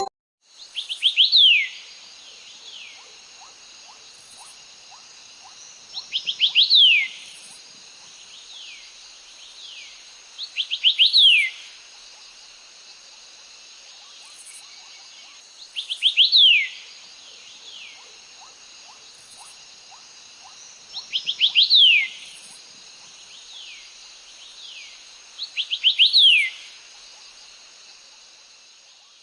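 Nature-sound alarm tone from a ZTE Axon 60 phone: a bird's quick runs of three or four falling chirps, repeated about every five seconds, over a steady high insect chirring.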